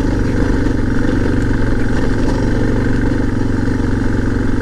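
Suzuki DR650's single-cylinder four-stroke engine running at a steady, moderate pace while the bike rolls along a gravel road.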